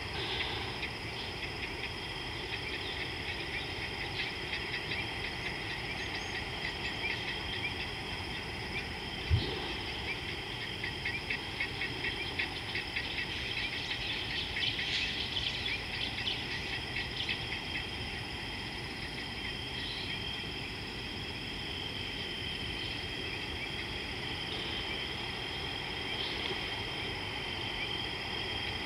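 Evening chorus of calling insects: a steady high-pitched trill with rapid clicking calls over it, busiest in the middle. A single low thump about nine seconds in.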